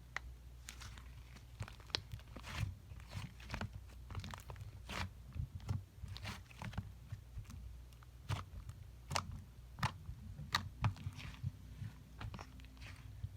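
Slime being squished and pressed by hand, giving irregular crackling, crunching and popping clicks.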